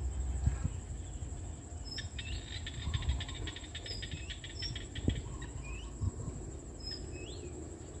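Small paddy frogs calling: a rapid pulsed trill for about two seconds, starting about two seconds in, and short scattered chirps, over a low rumble of wind on the microphone.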